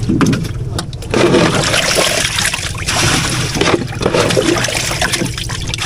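Water scooped from the river with a plastic scoop and poured into a boat's fish hold, splashing and trickling over the live catch, louder from about a second in. The pouring keeps the catfish wet so they stay alive.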